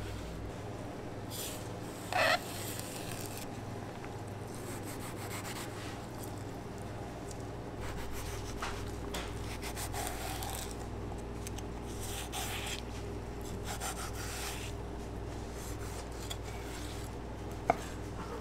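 Long knife scraping along a cutting board as it slices raw bluefin tuna, separating the skin from a fatty belly block in repeated wet strokes. There is a short, sharp, louder sound about two seconds in and a click near the end, over a steady low hum.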